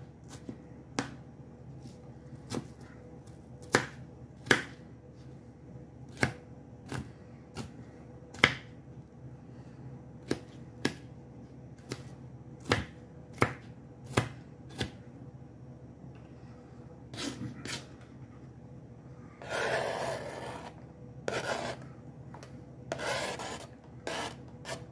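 Kitchen knife chopping onion on a plastic cutting board: single sharp knocks, irregular, about once a second. Near the end come a few longer scrapes of the knife and onion pieces across the board.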